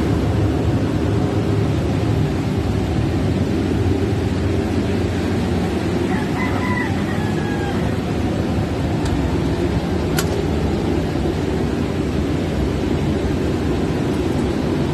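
Generator set's engine running with a steady low drone. A rooster crows faintly about six seconds in.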